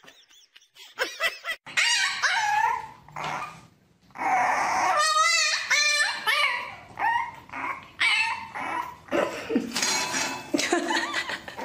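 French bulldog puppy whining and yelping in a string of high, wavering cries, starting about four seconds in, after quieter dog sounds.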